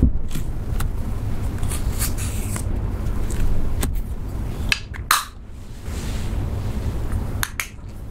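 A plastic spatula scraping cream eyeshadow out of a clear plastic compact and dabbing it onto clear slime, with scattered small scrapes and clicks of the plastic compacts being handled, over a steady low hum. The loudest scrapes come about five seconds in, with more clicks near the end.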